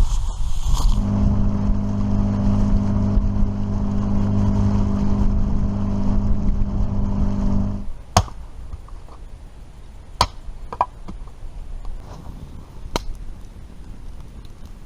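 Boat outboard motor (9.8 hp) running at a steady speed, which stops abruptly about eight seconds in. It is followed by quieter water-side noise with a few sharp clicks.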